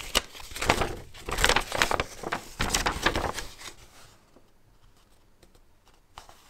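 Rustling paper as a folded instruction leaflet is unfolded and handled, in a string of rustles over about four seconds, then much quieter with a few faint ticks.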